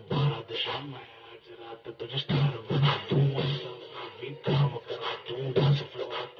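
A song with a strong, repeating bass beat, about three to four beats a second, playing through a repaired Zebronics home theatre. It has a quieter stretch about a second in. The bass plays as music rather than the buzzing vibration that a faulty filter capacitor had caused.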